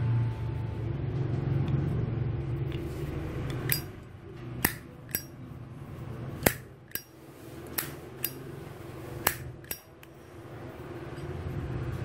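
Brass Zippo lighter's hinged lid clinking as it is flipped open and snapped shut: about nine sharp metallic clicks starting a few seconds in, mostly in pairs about half a second apart. A low steady hum underlies the first few seconds.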